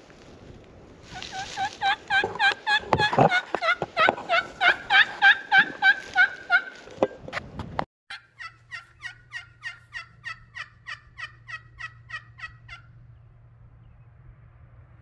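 Turkey call worked by a hunter: a long, loud run of evenly paced hen yelps, about three to four a second. It breaks off sharply about halfway through and is followed by a second, quieter run of higher-pitched yelps.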